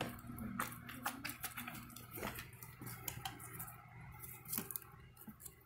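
Scattered light clicks and taps of small plastic fidget toys being picked up and set down, over a faint steady hum.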